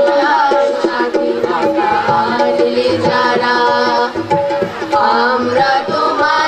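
A chorus of young male and female voices singing a Bengali patriotic song in unison through microphones, accompanied by a harmonium and drum beats.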